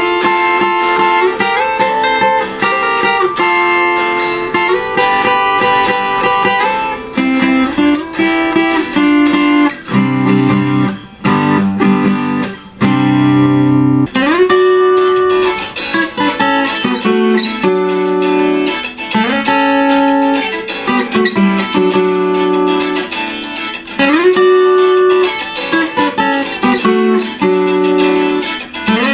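Acoustic guitar (violão) playing a slow, relaxed melody of plucked notes. Several notes slide up in pitch into the next, and deeper bass notes come in about ten to fourteen seconds in.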